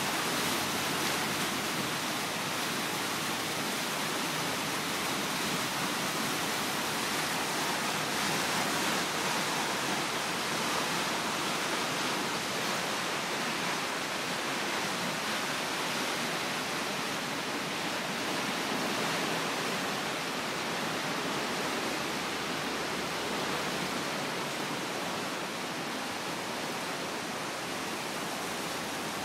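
Fast brown floodwater of the Fitzroy River rushing and churning against a railway bridge's piers: a steady rushing noise.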